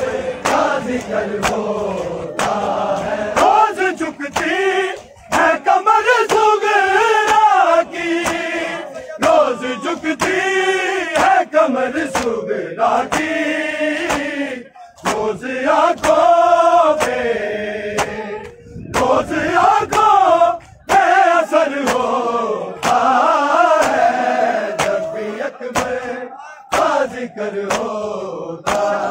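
A group of men chanting a Shia noha (lament) in unison, with the crowd's matam, hands slapping bare chests, making sharp slaps on a steady beat that keeps time with the chant.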